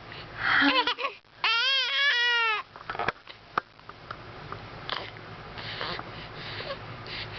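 Baby fussing: one short, high, wavering cry about a second and a half in, lasting about a second, then only faint small sounds.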